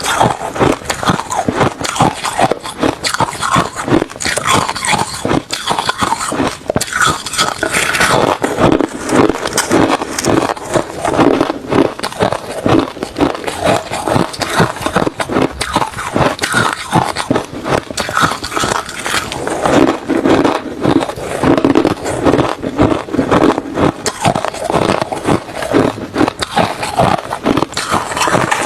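Close-up crunching of refrozen crushed ice and shaved ice being bitten and chewed: dense, irregular crunches, one after another.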